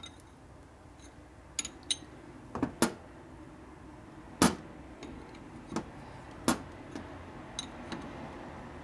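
Steel combination wrench clinking against a nut and the transmission parts as a nut inside an open Harley shovelhead four-speed transmission is tightened with short swings: a string of irregular sharp metal clicks, the loudest about four and a half seconds in.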